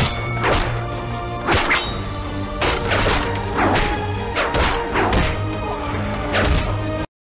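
Fight-scene punch and hit sound effects: a series of sharp whacks, about one or two a second, over dramatic background music. Everything cuts off abruptly about seven seconds in.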